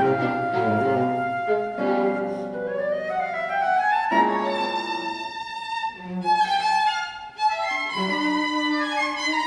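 Chamber music for flute, guitar, viola and cello: a line climbs in pitch over about two seconds to a high held note, followed by short separate notes.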